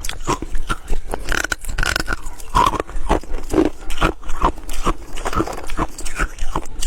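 Ice being bitten and chewed close to the microphone: rapid, uneven crunching, several crunches a second, with a few brief squeaky mouth sounds between them.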